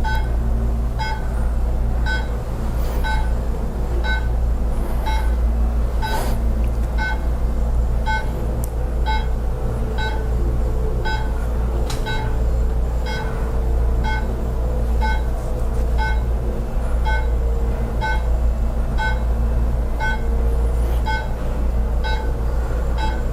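Class 4 therapy laser beeping about once a second while it is emitting, a short electronic tone repeated evenly, over a steady low hum.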